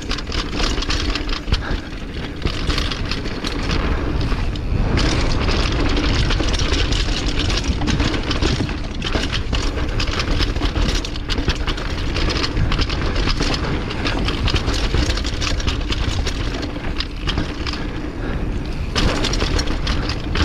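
Downhill mountain bike running down a rough dirt trail: tyres on dirt and a constant clatter of knocks and rattles from the bike over bumps, over a heavy low rumble.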